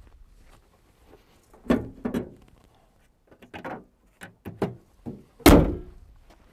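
The bonnet of an Isuzu D-Max ute slammed shut with one loud thump about five and a half seconds in, after a few lighter knocks and scuffs as it is handled and lowered.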